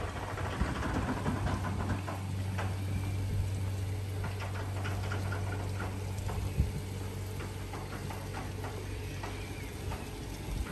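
A steady low mechanical hum of a motor running, with scattered light clicks and a small knock about six and a half seconds in; the hum weakens near the end.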